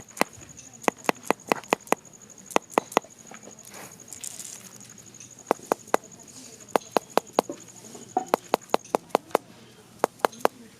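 Irregular sharp taps or knocks, often several in quick succession, over a steady high insect trill that stops about nine seconds in.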